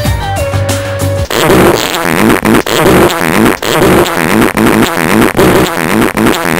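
Loud soundtrack music that switches abruptly about a second in from a rock track to a dense passage with a wavering pattern repeating about twice a second.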